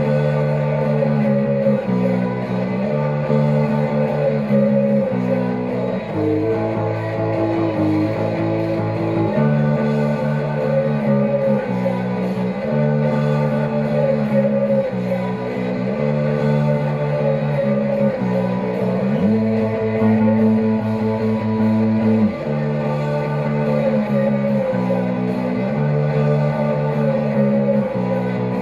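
Punk rock music: electric guitar strumming sustained chords over bass guitar, the chords changing every second or two.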